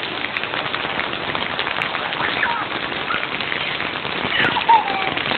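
Rain falling steadily on a concrete yard, a dense even patter of drops.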